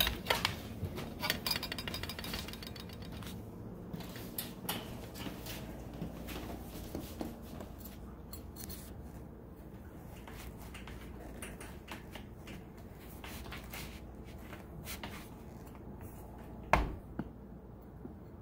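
A large kitchen knife being worked into a small pumpkin to cut it in half, with scattered clicks and knocks of the blade and pumpkin against a metal baking sheet. A brief run of rapid clicks comes in the first couple of seconds, and one loud knock comes near the end.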